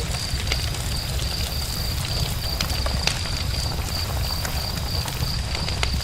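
Campfire crackling, with sharp pops scattered irregularly over a steady low rumble. A high, evenly pulsing chirp runs behind it.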